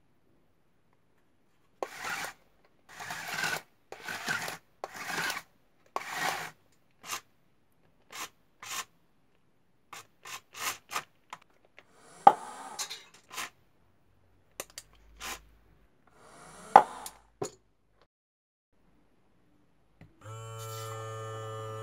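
Cardboard robot arm driven by small DC motors: its cardboard parts scrape and rub in about five half-second strokes, then come short clicks and two sharp knocks as it moves. Near the end a small electric pump motor starts with a steady hum.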